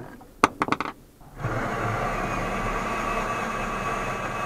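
A few sharp clicks, then about a second and a half in a cordless drill starts and runs steadily, boring a hole down into the van's floor.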